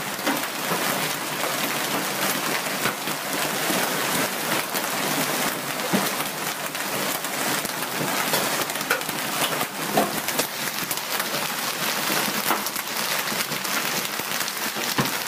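Heavy hailstorm with rain: a dense, steady hiss of falling rain and hail, with many sharp clicks and knocks of hailstones striking the ground and nearby surfaces throughout.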